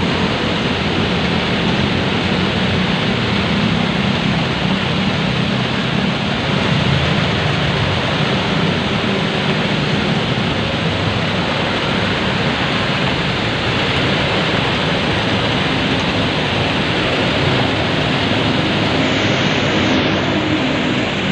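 Heavy rain falling: a loud, steady, even rush of water.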